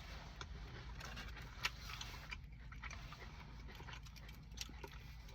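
Quiet chewing of a crispy fried onion ring dipped in sauce, with faint scattered crunches and one sharper click about one and a half seconds in, over a steady low hum.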